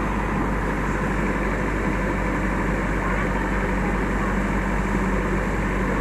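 JCB backhoe loader's diesel engine running steadily, with water rushing through a partly opened sluice gate.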